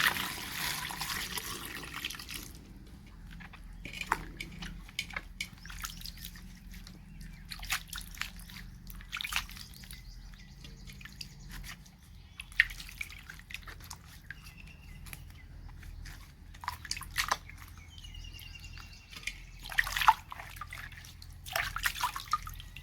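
Husked sweet corn cobs being washed by hand in water. Water runs for the first couple of seconds, then come scattered splashes, drips and light knocks of the cobs, with two louder splashes near the end.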